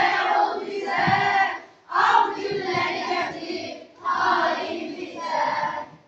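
Children's choir with a woman's voice singing in phrases about two seconds long, stopping near the end.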